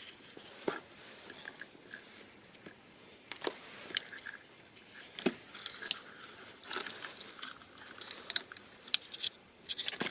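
Plastic wiring-harness connectors and wires being handled: scattered light clicks and taps with brief crinkling and rustling.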